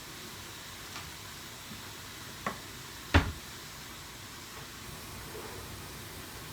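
Steady hiss of a cooking pot on the stove, with light clicks about one and two and a half seconds in and one sharp knock just after three seconds as the pot and utensils are handled.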